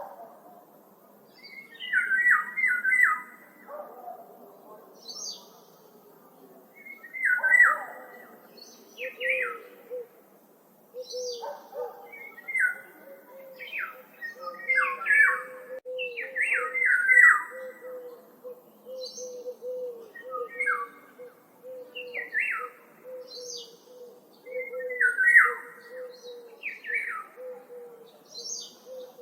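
Several wild birds calling over and over, short chirps and squawky notes repeated every second or two, with higher thin notes mixed in, over a faint steady low tone.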